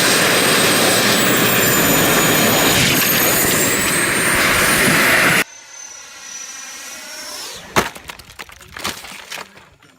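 RC jet's turbine engine running loud, with a high whine over the roar that dips and rises again about halfway through. It cuts off abruptly; then, quieter, a whine slides down in pitch and two sharp cracks follow about a second apart.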